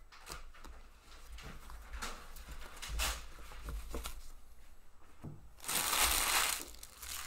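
Hockey trading cards being handled: small clicks and rustles as the stack is thumbed and squared, then a louder sliding rustle about six seconds in as the stack is set down on the pile.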